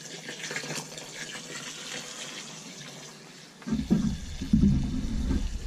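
Water sloshing as dried sugar-beet pulp and soya meal are stirred in a bucket with a scoop while the feed is put to soak. About four seconds in, the camera is handled, with a sudden low rumble and several loud knocks.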